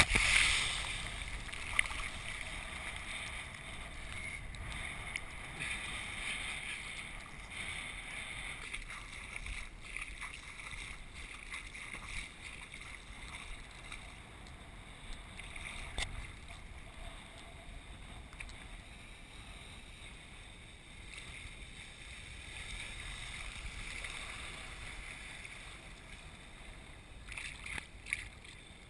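Spray from a kiteboard hits the camera in a loud burst at the very start, then water sloshes and laps around the camera at the surface as a steady hiss.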